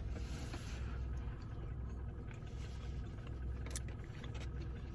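Steady low rumble inside a car, with a few faint clicks.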